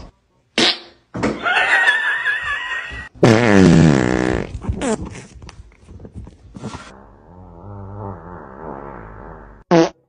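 A string of separate fart sounds cut one after another: a short one under a second in, longer wavering ones over the next few seconds, the loudest about three seconds in, then a low drawn-out one and a short sharp one near the end.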